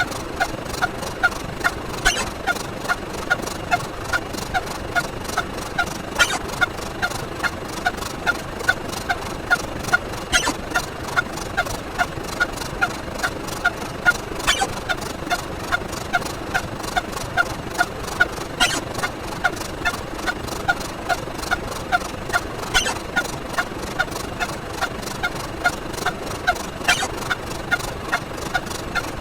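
A short sound effect repeated about twice a second, one per step of the count, over a steady hiss, with a sharper click every four seconds or so.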